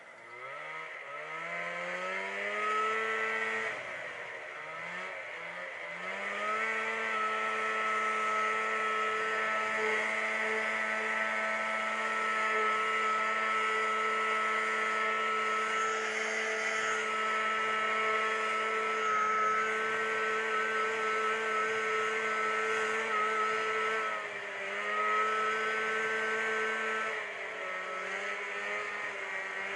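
Snowmobile engine accelerating over the first few seconds, easing off briefly, then running at a steady cruising pitch. The revs dip twice near the end as the throttle is lifted and reopened.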